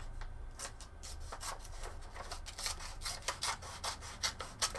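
3D-printed plastic scissors cutting paper: a quick run of short, crisp, rasping snips, about three to four a second, as the plastic blades chew through the sheet.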